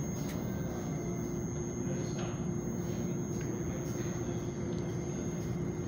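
Metra Electric Highliner electric multiple-unit train standing at the platform, its onboard equipment running with a steady low hum, one constant mid tone and a faint high whine.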